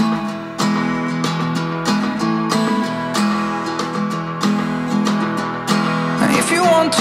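Background music: a steadily strummed acoustic guitar track, with a singing voice coming in near the end.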